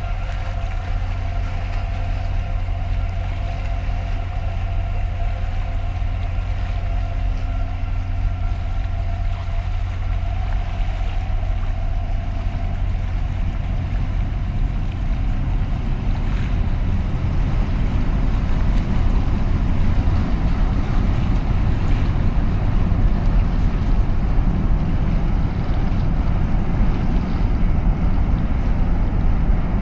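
Deep, steady drone of a large 13,800-TEU container ship passing close by under way, with a hum of several steady tones that fades out about a dozen seconds in. The low rumble grows somewhat louder in the second half.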